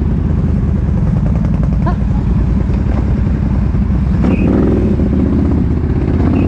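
Big-bore ATV engine running steadily off-road, its firing pulses coming thick and fast.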